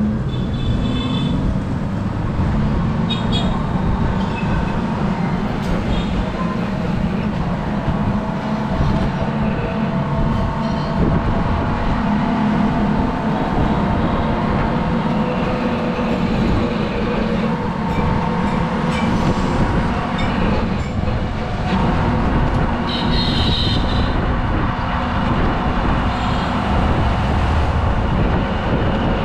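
Steady rumble and rattle of an open rickshaw rolling along a wet road, with a low motor hum. A few short high beeps from traffic horns rise out of it near the start and again about two-thirds of the way through.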